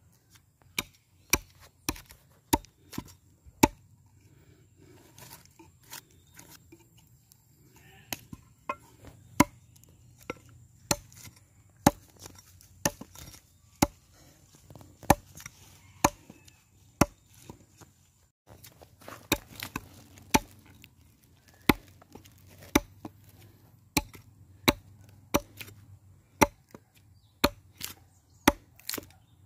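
Small hatchet chopping into the inside of a log as it is hollowed into a wooden mortar: a steady run of sharp strikes, about one or two a second, lighter for a few seconds near the start.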